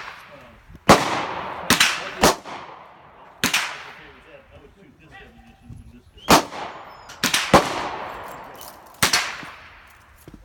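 Gunfire at a shooting range: about eight sharp shots at irregular intervals, some in quick pairs, each with a long echoing tail.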